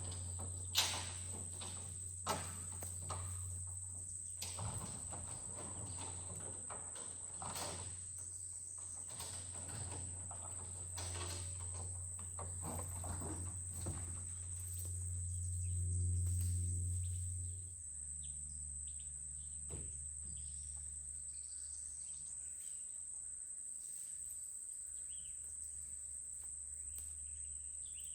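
Insects chirring steadily in a high, even band over a low, steady engine hum. The hum swells for a few seconds past the middle, then drops back. A few sharp clicks sound in the first seconds.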